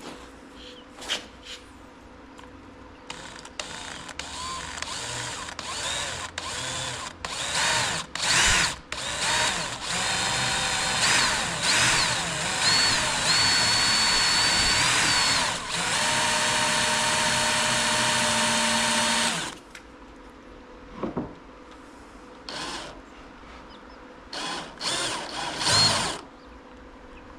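Power drill boring a small pilot hole crosswise through a cedar-strip kayak's epoxy-filled bow. It starts and stops in short trigger bursts, then runs steadily for about nine seconds near the middle, then comes back in a few more short bursts.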